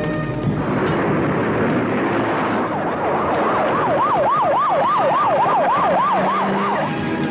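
Police car siren in a fast rising-and-falling wail. It starts about three seconds in and sweeps up and down about three times a second for roughly four seconds, over a steady rush of traffic noise.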